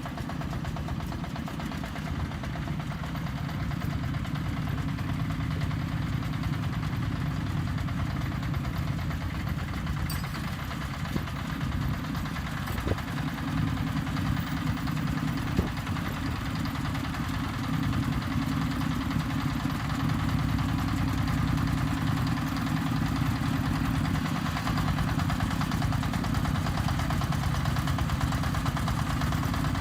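Self-loading concrete mixer's engine running steadily, with a few faint knocks partway through; it gets a little louder about two-thirds of the way in.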